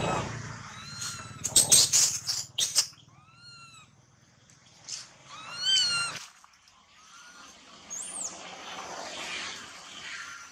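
Baby macaque giving short, high-pitched cries that rise and fall, several in a row, the whimpering of an injured infant. A burst of loud crackling clicks comes about two seconds in.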